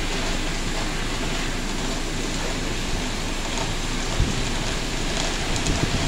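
Automatic tunnel car wash running: big spinning brush strips slapping across a car's body amid water spray, a steady wet hiss. There is one low thump about four seconds in.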